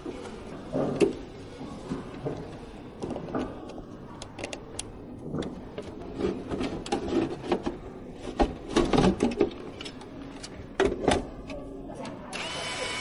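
Irregular clicks, taps and knocks of computer hardware being handled and fitted, with a cluster of sharper clicks around the middle.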